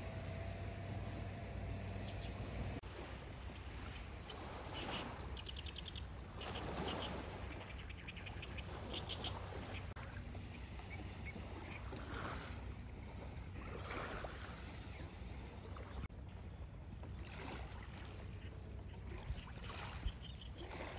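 Small waves lapping at a lake shore, coming in soft swells every couple of seconds, with a bird's rapid trills a few times.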